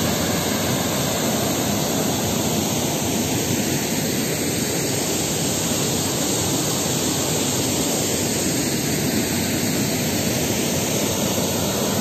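Waterfall: the steady rush of falling water, an even, unbroken roar.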